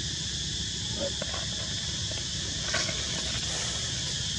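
Steady high-pitched drone of an insect chorus, with a few faint short clicks about a second in and again near the three-second mark.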